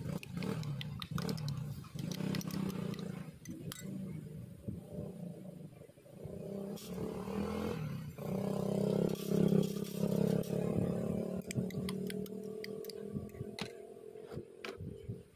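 A motor runs with a droning hum that wavers in pitch and grows louder in the second half, over scattered clicks and clinks.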